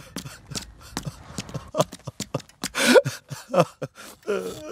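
Quick cartoon running footsteps, several a second. About three seconds in, a short wordless voice sound follows, a groan or sob.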